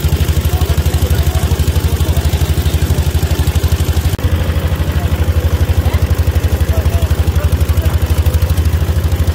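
Boat engine running steadily, a fast even thudding pulse.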